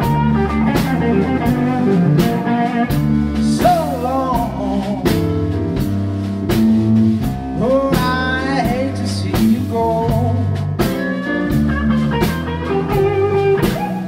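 A blues band playing a slow blues: drums keep a steady beat under bass and guitar, with a lead line of bent, wavering notes over it about four and eight seconds in.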